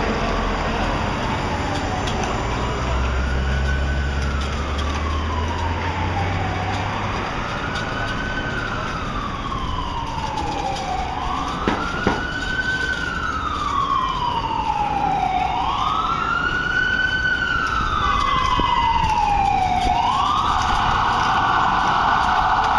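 Emergency vehicle siren wailing, rising and falling slowly about every four seconds and growing louder, then switching to a fast yelp near the end. It plays over steady street traffic, with a low engine rumble a few seconds in.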